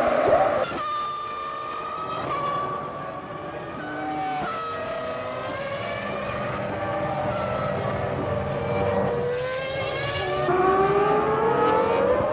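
Formula One V10 engines at high revs, several cars at once, the pitch climbing and dropping as they accelerate, change gear and pass. The sound changes abruptly a few times.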